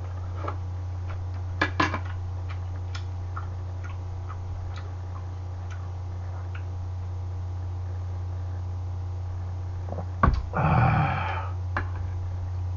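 Light clicks and taps of metal chopsticks and a plastic bottle at the table during a meal, over a steady low hum. A louder noisy sound lasting about a second comes about ten seconds in.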